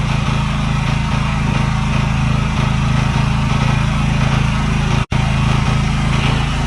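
Small gasoline generator's engine running steadily, a low even hum, just started after its leaking carburetor was fixed. The sound drops out for an instant about five seconds in.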